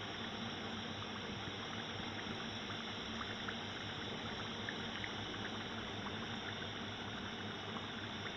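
Samosas deep-frying in hot oil in a kadhai: a steady sizzle and bubbling with small scattered crackles, over a steady low hum. The samosas are fried golden and ready to be lifted out.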